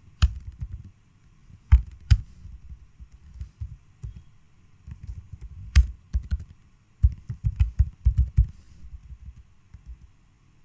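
Typing on a computer keyboard: irregular keystrokes, a handful of them noticeably louder clicks, with a quicker run of keys in the second half.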